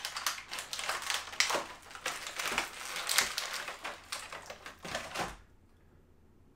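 Clear plastic blister tray of an action figure's packaging crinkling and clicking in quick, irregular bursts as small parts are popped out of it, stopping suddenly about five seconds in.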